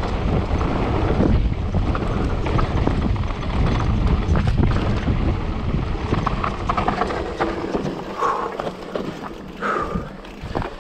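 Mountain bike riding over a rough, rocky trail: tyres rumbling and the bike rattling and clattering, with wind buffeting the microphone. It quietens about eight seconds in.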